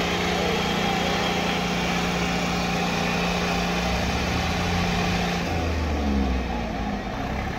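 Two John Deere 5310 tractor diesel engines running hard as the tractors pull against each other in a tug-of-war, a steady engine note that drops and wavers in pitch about five and a half seconds in.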